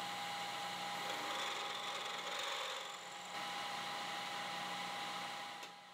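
Metal lathe turning a shaft between centers while a carbide insert tool takes a cut. It makes a steady running and cutting sound with a constant tone, which dips briefly about three seconds in.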